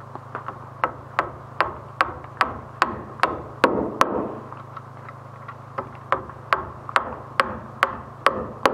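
Hand hammer driving nails to fasten a floor joist in its steel joist hanger. The blows come in two runs of about two to three strikes a second, with a pause of about two seconds in the middle.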